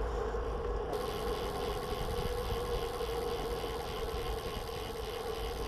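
Road bike rolling on asphalt: wind rushing over the bike-mounted camera's microphone and tyre rumble, with a steady hum.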